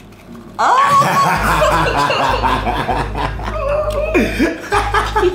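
A man and a woman laughing together, breaking out about half a second in and carrying on loudly.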